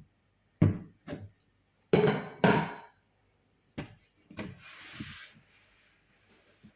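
Kitchen equipment being handled: a run of knocks and clunks, the loudest a pair about two seconds in, then a short hiss near the middle.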